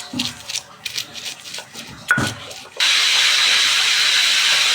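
Kitchen utensils clicking and scraping with a couple of knocks, then about three seconds in a loud, steady sizzle of food frying in hot oil starts suddenly.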